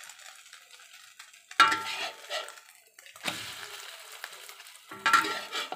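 Metal spatula scraping and clanking against a wok while turning an omelette, several sharp knocks with the pan ringing briefly after each. A faint sizzle is heard before the first knock.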